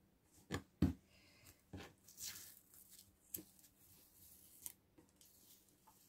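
Masking tape being picked at with a fingernail and starting to peel off a watercolour paper taped to a drawing board: two small taps in the first second, then quiet scratching and short rasps of tape lifting.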